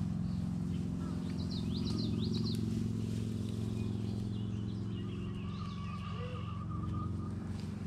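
A steady low motor hum, with birds chirping a few quick phrases over it about two seconds in.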